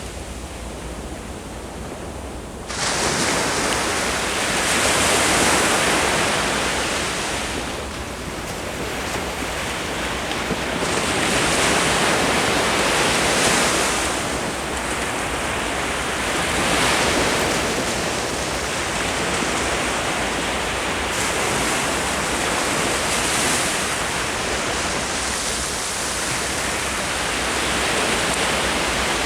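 Ocean surf breaking and washing up the shore, swelling and fading every few seconds. It is quieter and duller for the first couple of seconds, then jumps back to full loudness about three seconds in.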